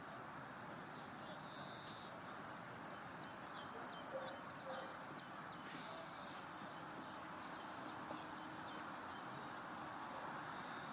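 Faint outdoor ambience: a steady low hiss with small birds chirping on and off.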